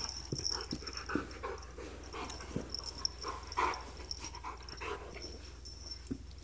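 Siberian husky play-wrestling with a cat: short, irregular dog noises and breaths, with a few soft knocks of bodies and paws on the carpet.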